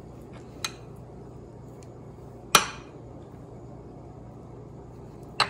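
A metal spoon clinking against a dish: a light tap about half a second in, a sharp clink with a short ring about halfway, and another sharp clink near the end.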